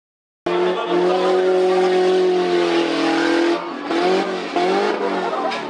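Tough truck's engine running hard at high revs, cutting in abruptly about half a second in. From about three seconds in the revs drop and rise in several quick swells.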